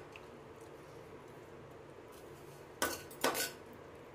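A steel spoon knocking and scraping against a steel bowl and pan while ground dry-fruit mixture is scooped into the bowl to measure it: two short clinks about three seconds in, the second trailing into a brief scrape.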